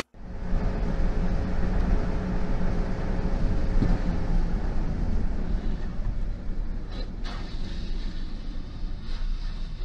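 Road, wind and engine noise inside a car travelling at highway speed: a loud, steady rumble, with two brief clicks about seven seconds in.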